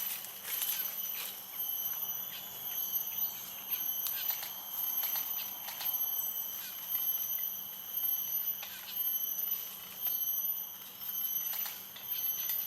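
Irregular sharp clicks and crackles of a blue-rumped parrot's bill peeling Champaca fruit and working out its seeds, over a steady high-pitched whine.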